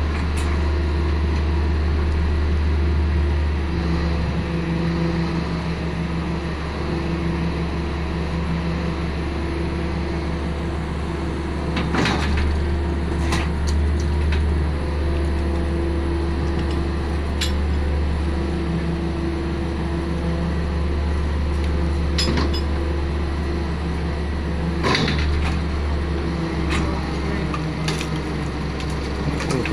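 Hydraulic static (jack-in) pile driver running: a steady low mechanical hum with a higher tone that comes and goes, and a few sharp metallic clanks.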